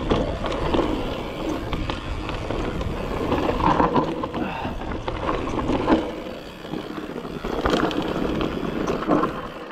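Mountain bike ridden fast along a dirt singletrack: a steady rumble of wind on the microphone and tyres on dirt, with the bike rattling and knocking over bumps, easing a little partway through.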